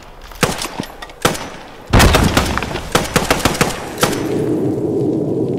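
Gunfire: two single shots about a second apart, then a rapid burst of many shots about two seconds in, lasting some two seconds. A steady low drone takes over near the end.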